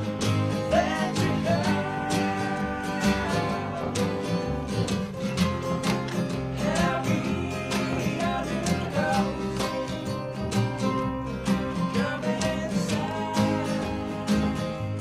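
Country-style song: strummed acoustic guitar with a singing voice.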